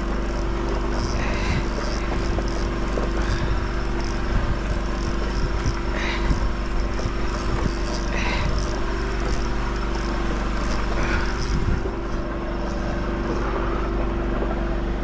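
An engine running steadily with a constant low hum.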